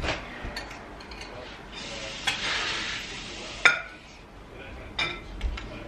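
Serving spoons and cutlery clinking and scraping against china plates and serving dishes: a few sharp clinks, with a longer scraping hiss in the middle.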